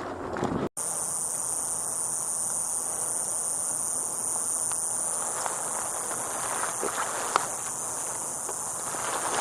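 Insects droning with a steady high-pitched hum. It starts after a brief drop-out under a second in, and there are a few faint clicks and one sharp click about seven seconds in.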